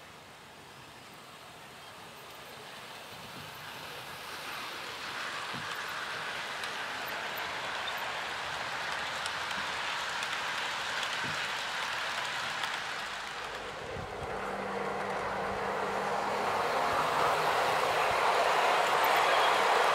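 OO gauge model train, a Bachmann class 47 diesel with a rake of Mk1 coaches, running on DC with no sound chip, so only its mechanical running noise is heard: the rattle of wheels on the rails. It grows louder as the train approaches, dips briefly about two-thirds of the way through, then swells to its loudest near the end as the locomotive passes close.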